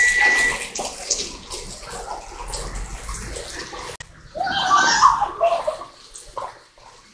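Steady rain and water splashing on a wet street. A high steady tone stops about half a second in, and a brief louder sound comes about four and a half seconds in.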